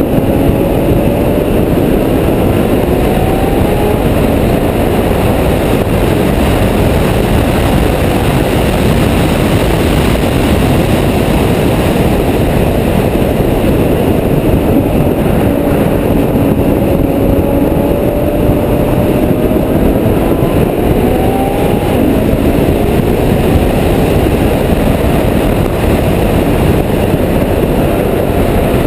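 Loud, steady wind and road rush on a camera mounted outside the Ferrari F12berlinetta at track speed. The car's V12 engine is faintly heard beneath it, rising in pitch twice as it accelerates, near the start and about halfway through.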